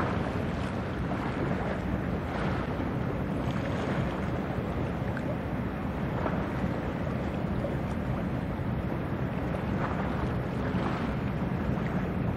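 Steady low rumble of a passing general cargo ship, mixed with wind noise on the microphone.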